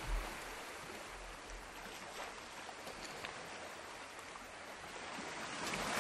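Steady rush of flowing water, an even hiss with no rhythm, swelling slightly near the end.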